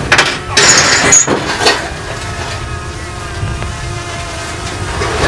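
Aluminum gangway ramp clattering and scraping on a floating dock as it is shifted into place, with a brief high metallic squeal about a second in. After that a steady low rumble continues.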